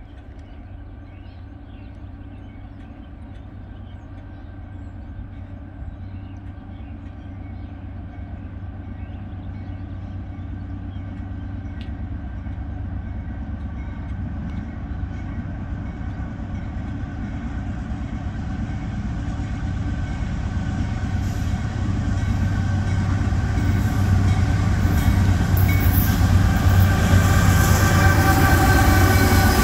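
Norfolk Southern diesel locomotives approaching at the head of a freight train. The engine rumble grows steadily louder throughout as the lead unit draws up and passes near the end.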